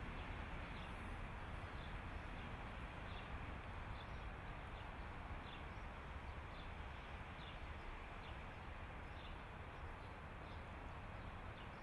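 Faint outdoor city ambience: a steady low hum of distant traffic, with small bird chirps repeating about once a second.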